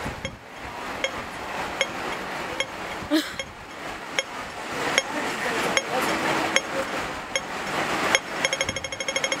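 Hong Kong pedestrian-crossing audible signal ticking slowly, about once every 0.8 s, over steady street noise: the wait signal. About eight seconds in it switches to rapid ticking, the signal that the green man is lit and it is time to cross.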